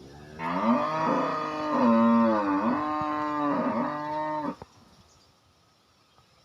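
One long, loud vocal call with a wavering pitch that rises and falls several times, lasting about four seconds and then cutting off suddenly.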